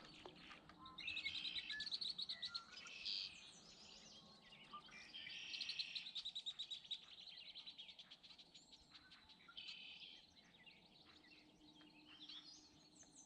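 Songbirds singing faintly: quick trilled phrases repeated every few seconds.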